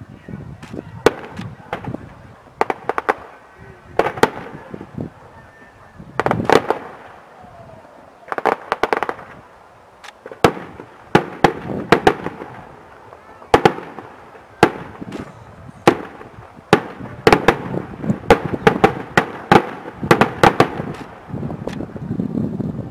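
Fireworks display: sharp bangs of exploding rockets and firecrackers in irregular clusters, some in quick crackling runs, coming thickest toward the end.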